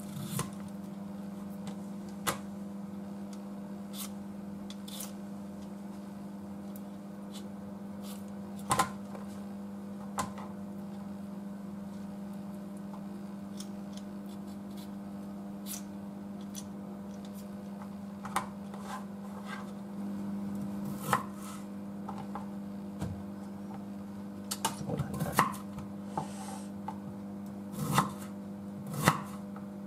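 Daikon radish being peeled with a Y-peeler over a wooden cutting board, with scattered light clicks and taps. In the last few seconds a kitchen knife cuts through the daikon, knocking on the board several times. A steady low hum runs underneath.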